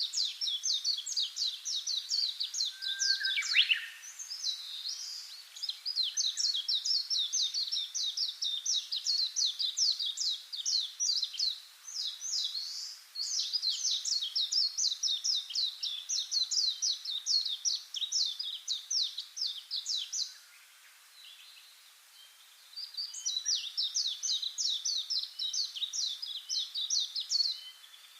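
Songbird singing long, rapid runs of high repeated notes, phrases lasting several seconds with short pauses between them.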